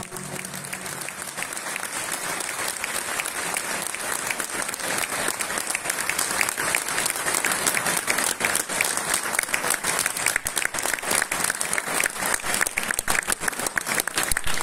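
Audience applauding, the clapping swelling over the first several seconds and then holding steady.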